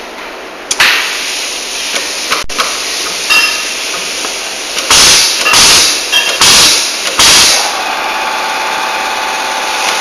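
Pneumatic wire stripping and crimping machine on compressed air. A steady air hiss starts suddenly about a second in. From about five seconds in come several short, loud blasts of air as the machine cycles, and a steady whine joins near the end.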